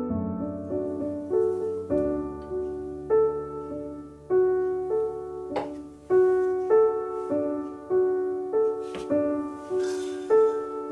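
Background piano music: a slow, gentle melody of single notes and soft chords, each note struck and left to ring.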